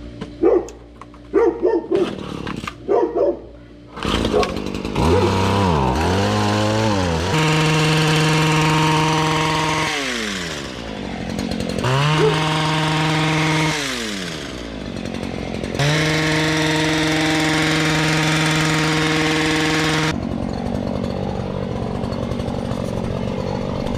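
Two-stroke gas hedge trimmer pruning shrubs: after a few short sputters the engine runs and is throttled up to full revs three times, dropping back toward idle between bursts and idling near the end.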